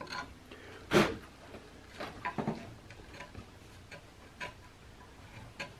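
Scattered light clicks and taps of hands and tools working a wooden rifle stock held in a vise, with one sharper knock about a second in.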